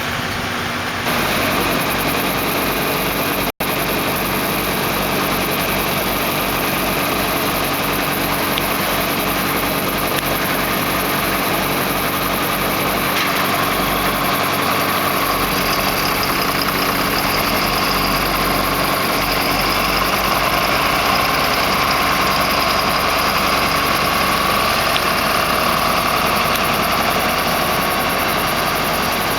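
Combine harvester running steadily while combining wheat, its engine and threshing machinery making a dense, even noise. There is a momentary break in the sound about three and a half seconds in. A whine grows stronger in the second half.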